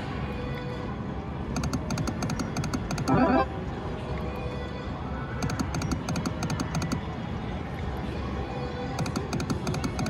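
Fortune Jackpots slot machine spinning round after round, with a burst of rapid clicking for each spin about every three to four seconds over the machine's music. A short chime sounds a little over three seconds in.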